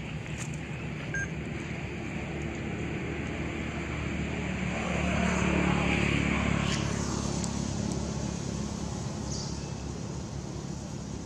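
A motor vehicle driving past, its engine hum growing louder to a peak about six seconds in and then fading away, over a steady low hum of traffic.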